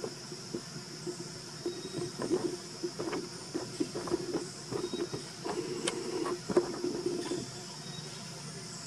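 Insects droning in a steady high-pitched chorus, with irregular clicks and a low rattling hum over it that stop about seven and a half seconds in.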